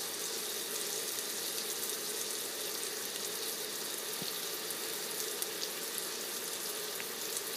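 Frozen hamburger patties sizzling steadily in a hot pan, with a few faint pops.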